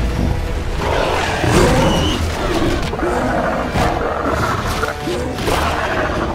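Monster-movie fight soundtrack: film score with creature roars and growls layered over it, short growls recurring about once a second over a low rumble.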